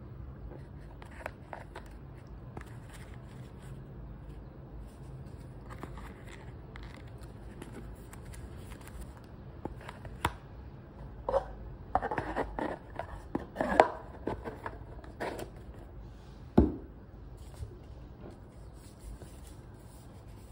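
Hands handling jewelry packaging: a bottle and cardboard gift boxes being lifted, turned and set down, with scattered light taps and clicks, a run of louder knocks and scrapes in the middle, and one sharp knock a few seconds later.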